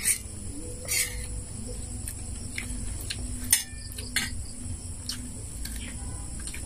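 Scattered light clicks of a spoon and dishes knocking on plates during a meal, over a steady high buzz of insects.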